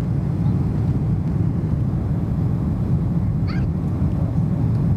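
Steady low rumble of a Boeing 747-400's four turbofan engines and rushing air, heard inside the passenger cabin during the climb just after takeoff. A brief faint high-pitched sound comes about three and a half seconds in.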